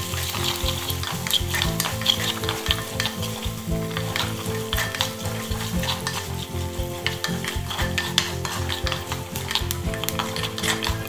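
Garlic cloves, shallots and onion frying in sesame oil in a clay pot, sizzling steadily while a slotted wooden spatula stirs them, with frequent small scrapes and clacks against the pot.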